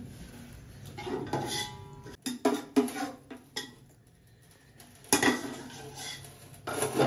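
Metal ladle clinking and knocking against a metal cooking pot as chicken korma is ladled over rice for biryani: a handful of sharp clinks, the loudest just after two seconds and again about five seconds in.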